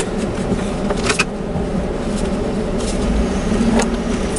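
Engine and road noise of the vehicle heard inside its cab as it pulls away from the border booth, a steady low hum that swells toward the end as it speeds up. A few light clicks come about a second in and near the end.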